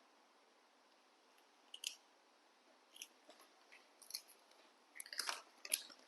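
A crunchy snack being bitten and chewed: scattered short crunches that come thicker and louder about five seconds in.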